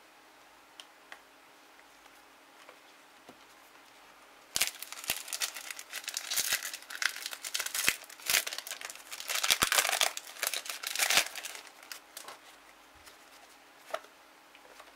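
A foil Topps Match Attax booster pack being torn open and crinkled, starting about four seconds in and going on for some seven seconds. After it, a few light clicks of cards being handled.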